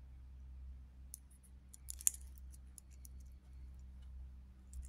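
Faint, irregular clicks and clinks of a Seiko 5Y23-8A11 quartz watch's stainless steel bracelet links as the watch is turned over in the hands, the loudest about two seconds in, over a low steady hum.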